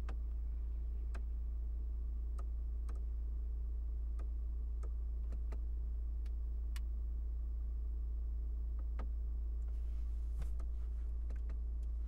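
Sharp, irregularly spaced clicks from the Supra's rotary infotainment controller knob as it is turned and pressed through the menus, about a dozen in all, over a steady low hum in the car's cabin.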